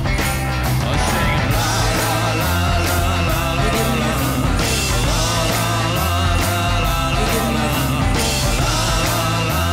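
A recorded rock song playing, a full band with a steady drum beat.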